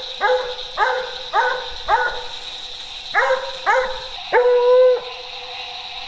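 Coon dog barking treed at a raccoon up in the trees: about seven short barks, then one longer drawn-out bawl about four and a half seconds in.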